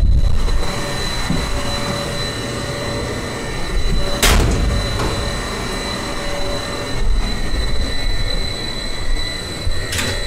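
Locomotive standing with its machinery running: a steady low rumble and hum with a thin high whine, and a sharp knock about four seconds in and again near the end.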